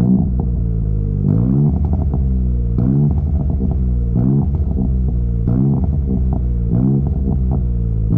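Chevrolet Onix RS engine through an aftermarket sport exhaust (rear muffler and Luzian LA011 intermediate muffler), revved in repeated quick blips that rise sharply in pitch and drop back to a low drone, about one every second or so.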